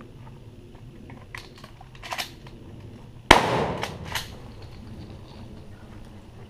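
One shotgun shot a little over three seconds in, dying away over about a second, with a few fainter sharp clicks before and after it.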